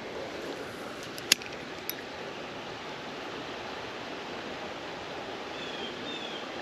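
Creek water running steadily, with a single sharp click a little over a second in and a couple of faint, short high chirps near the end.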